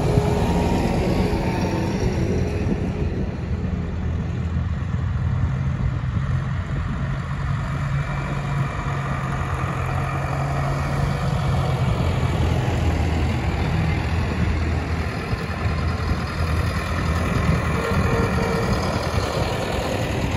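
Farm tractors, a Fendt 724 among them, driving past one after another while pulling planting implements, their diesel engines running steadily.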